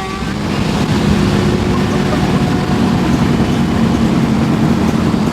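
Subaru Impreza WRX rally car's turbocharged flat-four engine running at a steady pitch over a dense rumble of driving noise as the car is driven off road.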